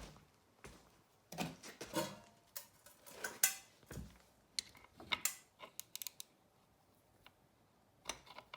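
Metal hand tools clinking and rattling as they are picked through and handled, with scattered clicks. The loudest clank comes about three and a half seconds in, and it goes mostly quiet for a couple of seconds near the end.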